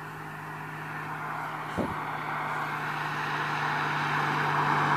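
An oncoming car's tyre and road noise growing steadily louder as it approaches, over a steady low hum.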